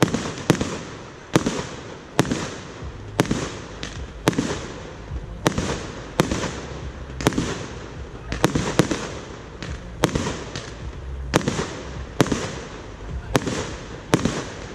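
Fireworks battery fired from the ground, shooting one shot after another in a steady run of about three sharp bangs every two seconds, each with a short tail.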